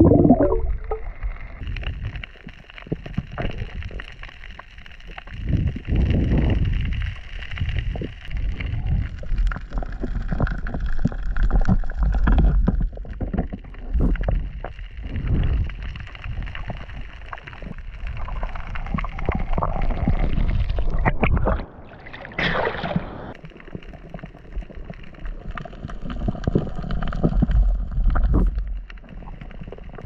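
Underwater water noise around a diving spearfisher's camera: a low rumbling, gurgling wash that swells and fades every few seconds as he swims, with scattered clicks and crackles.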